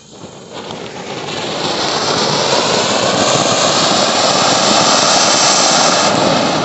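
Anar (flower-pot fountain firework) spraying a jet of sparks with a loud, steady hiss. The hiss builds over the first two seconds as the fountain gets going.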